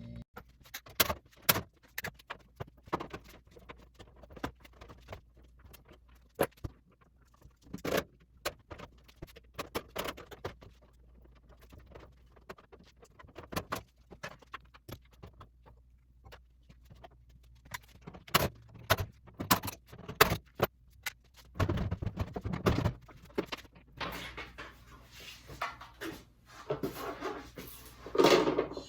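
Clinks, clicks and knocks from dismantling a clothes dryer by hand: metal parts, screws and panels being handled and set down. The sounds come at irregular intervals, with a short lower rumbling stretch about three quarters of the way in and denser scraping and handling noise near the end.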